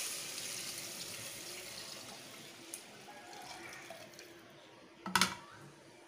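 Tamarind water, made with rice-washing water, poured in a steady stream into a clay pot of fried masala. The pouring fades as the stream thins. A single sharp knock comes about five seconds in.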